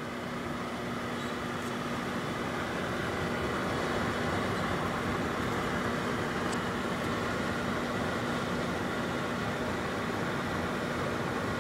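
Microwave oven running while it heats an apple: a steady hum with a constant low tone.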